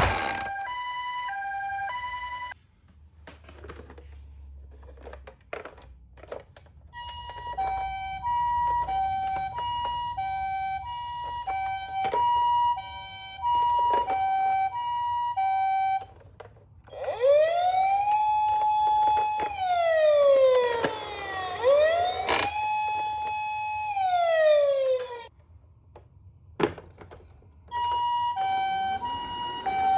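Toy ambulance minicar's electronic siren. It plays a two-tone hi-lo "pee-po" siren, stops, and then gives two long rising-and-falling wails before going back to hi-lo near the end. Clicks of the toy being handled fall in the pauses.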